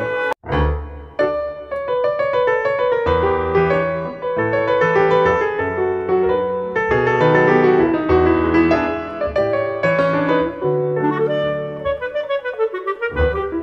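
Instrumental background music: piano chords under a wind-instrument melody, breaking off for a moment about half a second in before carrying on.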